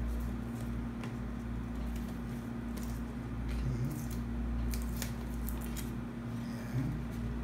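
Hands opening a cardboard camera box: the card scrapes and rustles in short scratches, most of them in the middle of the stretch, over a steady low electrical hum.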